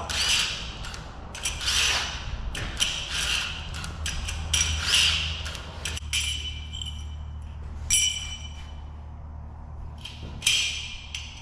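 Hardened steel combine sickle sections clinking and knocking against each other and against metal: about a dozen sharp, irregular strikes, several leaving a short bright metallic ring, over a low steady hum.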